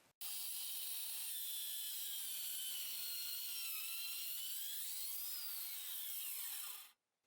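A small high-speed power tool motor running with a high whine that wavers in pitch, then spins down with a falling pitch and cuts off near the end.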